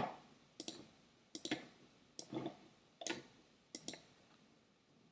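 Faint clicking of a computer mouse: about five clicks, each a quick press-and-release pair, under a second apart.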